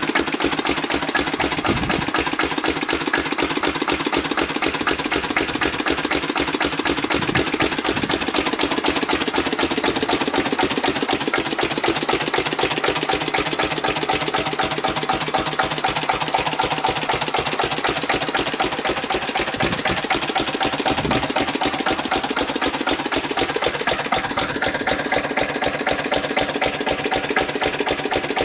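Single-cylinder Lister CS stationary diesel engine running light with no load, a steady, rhythmic clatter.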